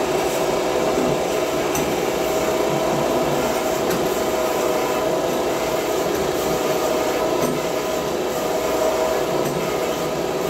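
Power grinder grinding a steel thresher comb (kangi) blade, which throws sparks: a steady grinding rasp over a constant machine hum.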